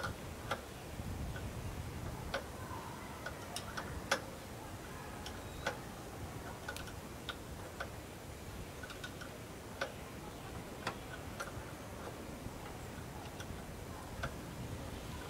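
Hand ratchet wrench clicking in short, irregularly spaced metallic clicks as it works a fastener at the end of a generator alternator's rotor shaft.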